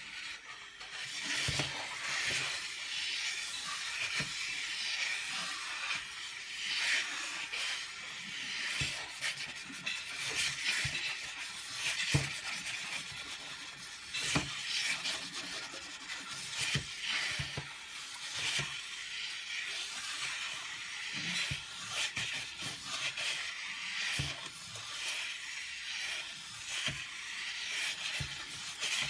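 Two dark drawing sticks scribbling round and round on a large sheet of paper, both hands at once: a continuous scratchy rubbing, with frequent short knocks as the sticks strike the paper.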